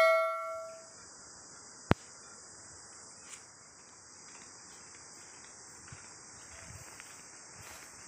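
A bell chime from a subscribe animation fades out in the first second. Then a steady, high-pitched insect chorus carries on, with a single sharp click about two seconds in and faint footsteps on grass near the end.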